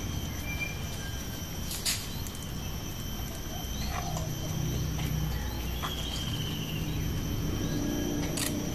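Outdoor ambience: a steady high-pitched insect trill with a low rumble beneath, a few short bird-like chirps, and two sharp clicks, one about two seconds in and one near the end.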